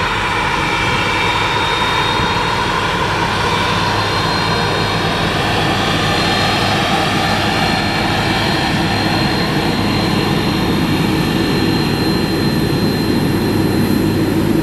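Jet airliner engines running close by, a steady loud roar with a high turbine whine that drifts slowly in pitch.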